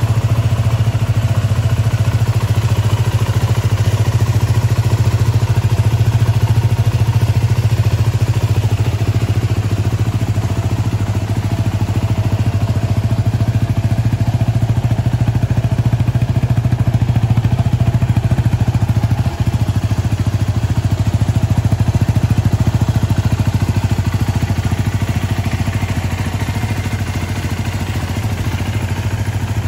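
Yamaha WR250R's single-cylinder four-stroke engine idling steadily.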